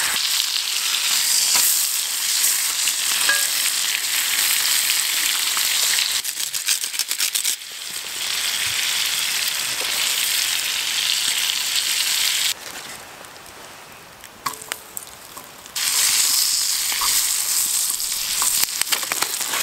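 Steak sizzling steadily in a frying pan over campfire embers, with a patch of crackling about six seconds in. The sizzle drops to a low hiss for about three seconds past the middle, then comes back at full strength.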